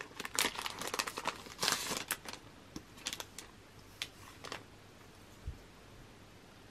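Paper and card rustling and crinkling as a set of postcards is handled and shuffled, a flurry of short crisp sounds that dies away about two-thirds of the way through. A soft low bump follows near the end.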